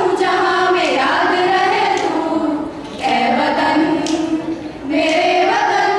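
A group of teenage girls singing a song together, holding long notes, with short breaks between phrases.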